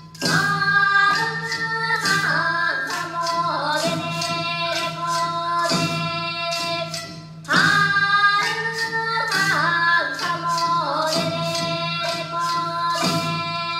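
Japanese folk-song ensemble performing: voices singing a wavering melody over transverse bamboo flutes, with sharp clacking percussion keeping time. The phrase restarts loudly about seven and a half seconds in after a brief dip.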